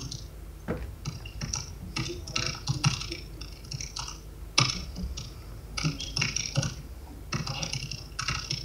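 Laptop keyboard typing: irregular runs of keystrokes broken by short pauses.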